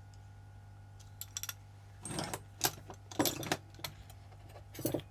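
Small metal hand tools being handled, giving a run of light clicks and then several short clinking clatters.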